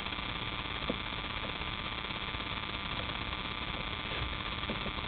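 Turbocharged engine running steadily, with a whine of several steady high tones over a low rumble; the turbocharger is failing, with play in its compressor shaft.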